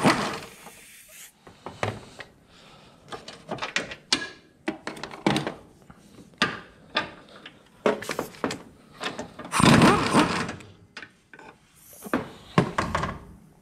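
Impact wrench spinning off the 17 mm engine-mount bolts, once in the first second and again for about a second past the middle. In between come scattered clunks and knocks of the tool and the loosened mount being handled.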